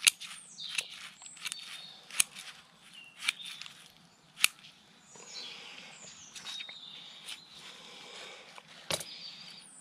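Pruning scissors snipping through bonsai roots: sharp snips at irregular intervals, about one every half second to second. Birds chirp faintly in the background.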